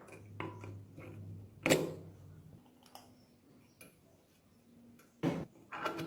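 A few sharp knocks and clicks, the loudest about two seconds in and two more near the end, over a low hum that stops after about a second and a half.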